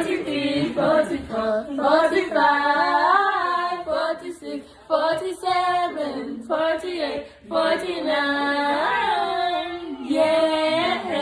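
Female voices singing a melody, with held notes and sliding pitches, breaking off briefly twice.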